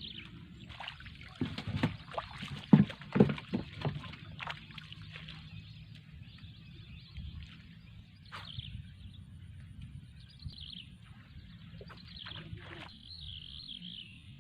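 Water sloshing and splashing in shallow floodwater, with a cluster of sharp knocks and splashes in the first few seconds, then quieter sloshing.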